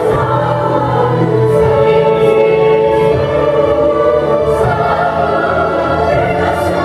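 A large choir of children and adults singing together, holding long notes.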